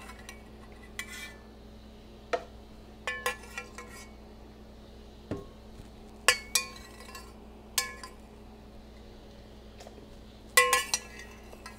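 Metal spoon clinking and scraping against a stainless steel saucepan while scooping out cooked tomatillos and jalapeños: a dozen or so scattered, irregular clinks, some with a short metallic ring.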